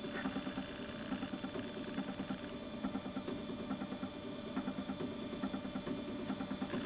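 Stepper motors of a home-built laser cutter stepping very slowly, a faint steady hum with quick, even pulses; the step delay has been lengthened so the laser can burn through the paper.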